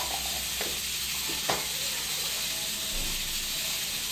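Steady hiss of a pan cooking on the stove, with two light plastic clicks as a small food-processor bowl is handled.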